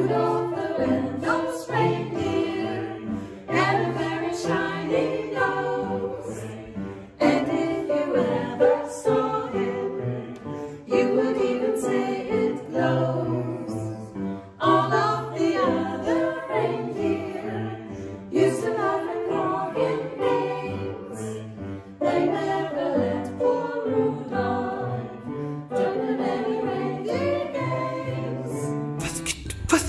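Small mixed choir of women's and men's voices singing in parts, in phrases of a few seconds with short breaths between them.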